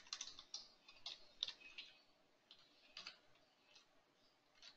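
Faint, scattered clicks of a computer keyboard and mouse, irregular keystrokes and clicks bunched in the first second and a half and again around three seconds in.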